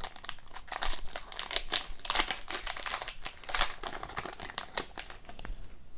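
A hockey trading card pack's wrapper being torn open and crinkled by hand, with a dense run of irregular crackles.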